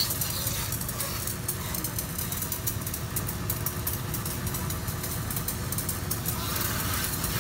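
Pressure washer running steadily: a low motor drone with the hiss of the high-pressure water jet on top.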